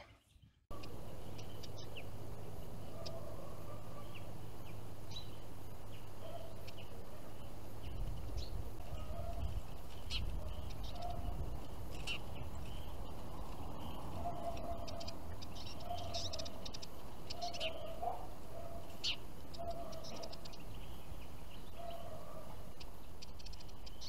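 European goldfinches and other small songbirds making short, scattered chirps, over a steady low rumble of outdoor background noise. Lower calls repeat now and then in the background.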